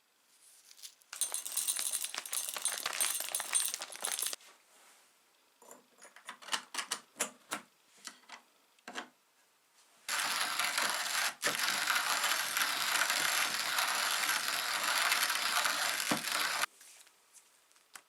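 Antique brass hand coffee grinder being worked. It gives a few seconds of dense crunching, then a run of separate clicks and rattles, then a longer steady grinding stretch of about six seconds that stops abruptly.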